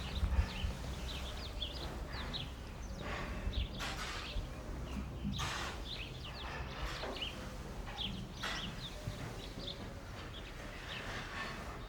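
Barn ambience: small birds chirping over and over, with a few brief rustling noises and a steady low rumble underneath.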